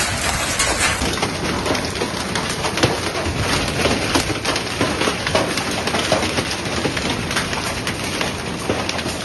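Hail and heavy rain pelting down, a dense continuous clatter of countless small impacts on hard surfaces.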